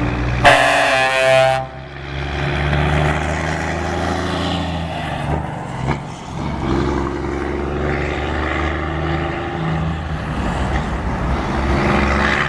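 Scania truck's diesel engine rumbling loudly, with a blast of its air horn lasting about a second near the start.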